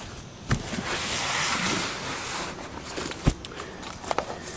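Handling noise from a handheld camera being moved about: a rustling hiss that swells about a second in and fades, with a few sharp knocks, the loudest about three seconds in.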